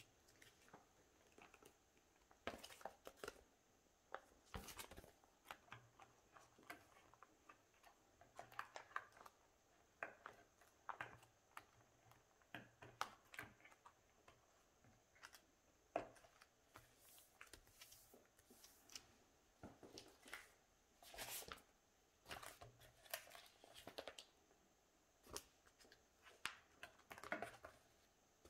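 Faint, scattered rustles and small clicks of photocards and plastic binder sleeves being handled: cards being slid out of and into binder pockets.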